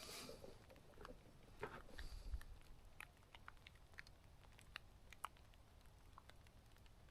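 Near silence with faint, scattered raindrops ticking and pattering at irregular intervals, a little busier about two seconds in.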